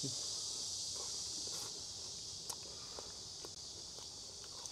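Close chewing of a crisp sesame flatbread stuffed with steak and potatoes: scattered small crunches and mouth clicks over a steady high hiss that drops a little about two seconds in.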